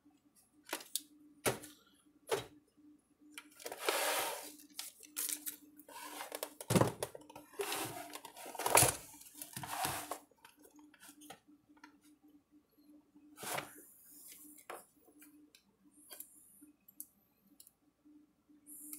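Handling noise: clicks, knocks and scraping as the big plastic case of an electric fencer is moved and turned around on a workbench. The longest scrapes come about four seconds in and again around eight to ten seconds in, over a faint steady hum.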